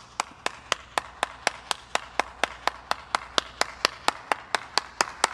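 One person clapping hands in a slow, steady rhythm of about four claps a second.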